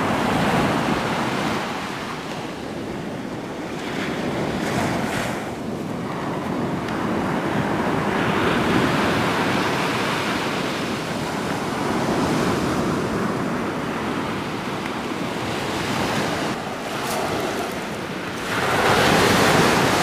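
Ocean surf washing onto the beach, swelling and easing every few seconds, with wind blowing across the microphone.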